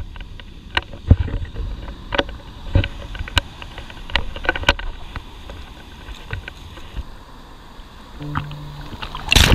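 Footsteps on beach sand: irregular soft thuds and crunches over a low rumble. Near the end comes a loud rush of surf washing in.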